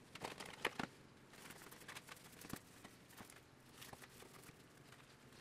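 Faint sticky crackling and small taps from nitrile-gloved hands handling and pressing an epoxy-soaked stack of paper towels, busiest in the first second, then scattered.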